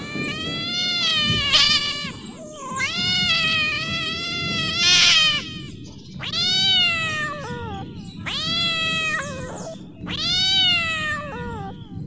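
Domestic cat yowling: five long drawn-out meows, each rising and then falling in pitch, with short breaks between them.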